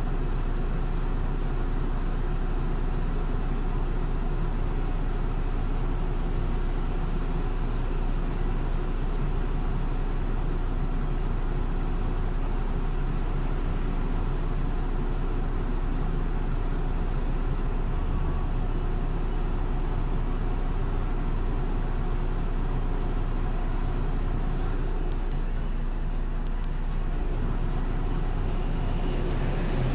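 MAN Lion's City LE Ü city bus with its D0836 EEV six-cylinder diesel and ZF Ecolife automatic, heard from the passenger area ahead of the rear axle, running steadily with an even drone and no clear changes in pitch.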